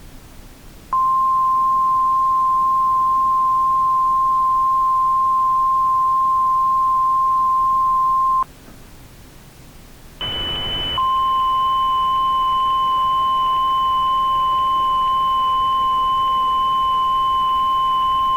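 Emergency alert tones: a single steady alert tone of the National Weather Service kind holds for about seven and a half seconds and cuts off. After a short lull of faint hiss, a brief burst of static comes in with a second, higher steady tone, and the first tone starts again beneath it about a second later.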